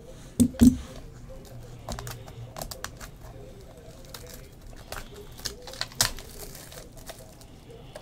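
Plastic shrink-wrap on a trading-card pack being handled and peeled off: scattered crinkling and clicking, with two loud knocks about half a second in and a sharp snap near the end.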